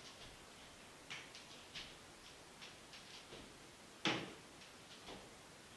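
Uneven light taps of a crutch tip and sandalled footsteps on a tiled floor, with one louder knock about four seconds in.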